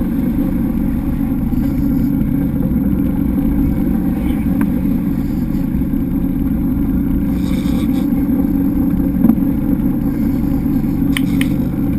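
Boat engine running steadily with a low, even drone, with a few faint clicks near the end.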